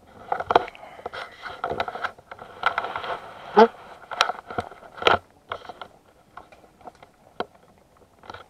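Irregular knocks, clicks and scrapes of an action camera being handled and fitted to a helmet mount, right against the microphone.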